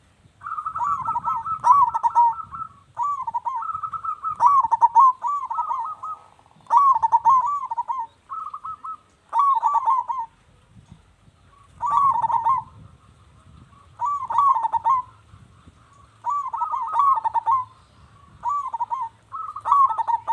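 Zebra dove (perkutut) cooing: phrases of quick rolling notes repeated about every two seconds.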